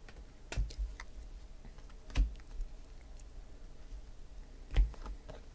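Panini Prizm chrome trading cards being flipped through by hand: a few sharp clicks and light taps as cards are slid off and set against the stack, the strongest about half a second, two seconds and nearly five seconds in.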